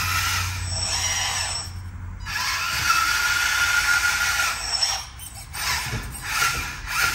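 Electric drive motor and metal gearbox of a Lesu RC Hamm H13i road roller whining as the model drives forward. It pauses about two seconds in, runs again, then starts and stops in short pulls near the end.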